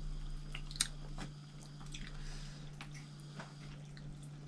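Eating sounds: chewing, with soft wet clicks and crackles as cooked prawns are pulled apart and shelled by hand. Scattered sharp ticks come over a steady low hum.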